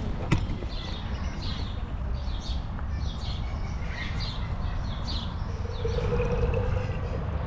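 A small bird chirping repeatedly, about two short chirps a second, over a steady low outdoor rumble; the chirping stops about five seconds in and a steady hum sets in.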